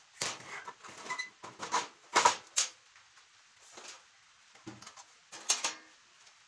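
Aluminium fence extrusion being set down and slid into place on a galvanized steel table saw top, metal scraping and knocking in a run of short bursts, loudest about two seconds in and again near the end.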